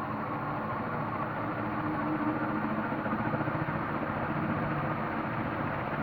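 KDK T56ZK ceiling fan running steadily: a low motor hum under an even rush of moving air.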